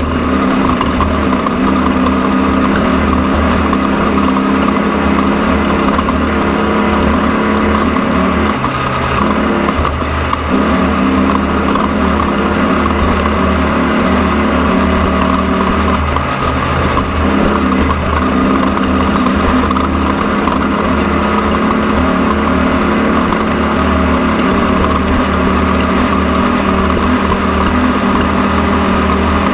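An engine running steadily, its note shifting briefly about nine seconds in and again around sixteen seconds in.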